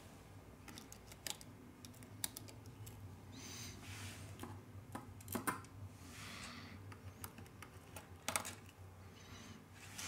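Faint, irregular small clicks and taps of metal tweezers against a phone's small internal metal parts. Two of the clicks are louder, about five and a half and eight and a half seconds in.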